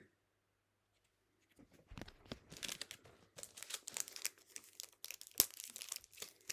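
Foil trading-card pack wrapper being crinkled and torn open, an irregular crackle with small sharp clicks that starts about one and a half seconds in.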